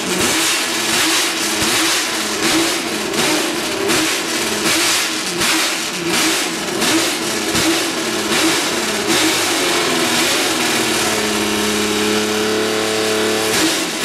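1968 Honda RA301's RA301E V12 racing engine being warmed up: the throttle is blipped over and over so the revs rise and fall quickly, then held at a steady speed for a few seconds from about ten seconds in, before the blipping starts again near the end.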